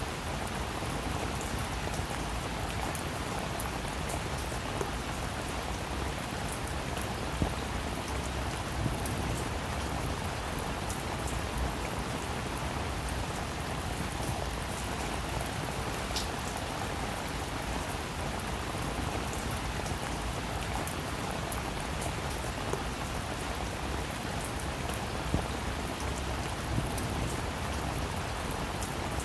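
Steady rainfall, a constant hiss with individual drops pattering and ticking on surfaces.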